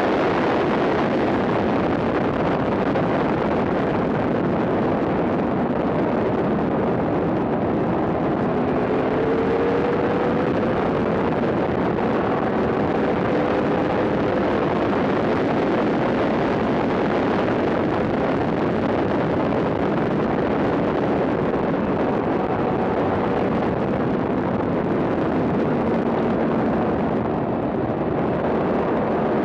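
Yamaha R1 inline-four sport bike at full track speed, with steady wind rush on the microphone and the engine note underneath, rising in pitch a couple of times as it pulls through the revs.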